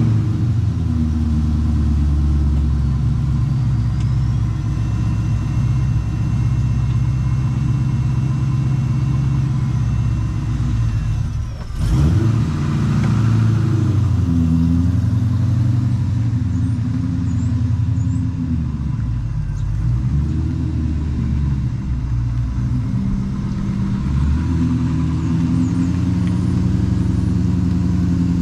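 A car engine running just after being started, idling and picking up lightly in pitch as the car is driven short distances. There is a short sharp knock about twelve seconds in.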